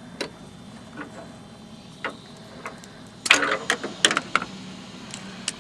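Sharp clicks and rattles of a car bulb and its plastic socket being handled, with a few single clicks and then a quick flurry of loud clicks and rattling about three seconds in, over a faint steady hum.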